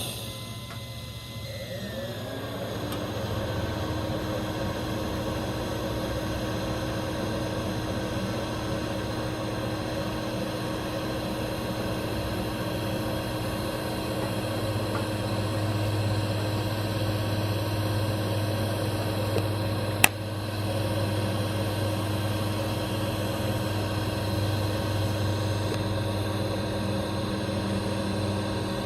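Welding machine running with a steady hum and hiss, settling in over the first couple of seconds, with one sharp tick about two-thirds of the way through.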